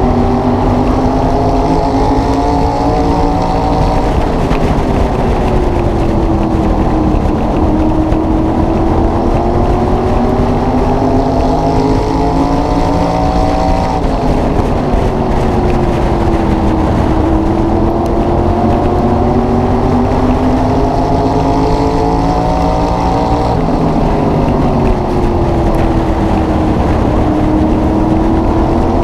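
SK Modified race car's V8 engine at racing speed, heard on board close to the engine. It climbs in pitch down each straightaway and falls away as the driver lifts for the turns, a rise-and-fall cycle that comes round twice.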